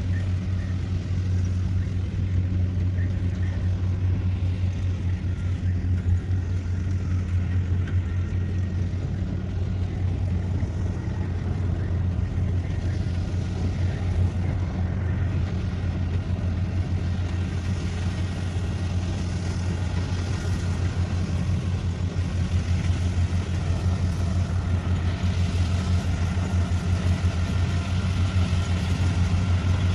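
Kubota combine harvester's diesel engine running steadily under load while it cuts rice, a low, even drone that grows a little louder near the end.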